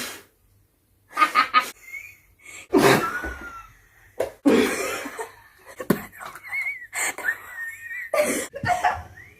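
Women's wheezing laughter: breathless, cough-like fits with high squeaky wheezes. It starts after a brief silence about a second in.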